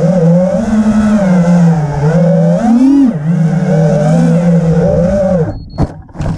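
Quadcopter drone's motors and propellers whining loudly, the pitch wavering up and down as it manoeuvres. About five and a half seconds in, the pitch drops and the motors cut out, followed by a couple of knocks as the drone tumbles to the ground in a crash.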